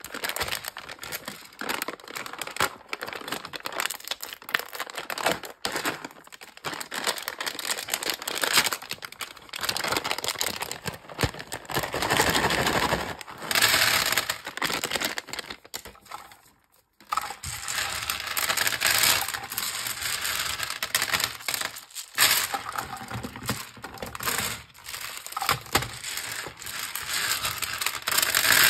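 Plastic candy wrapper crinkling as it is torn open, then small hard-coated candies pouring out and clattering onto a table and being rattled around by hand. The sound cuts out briefly a little past halfway, then the crinkling and clicking carry on.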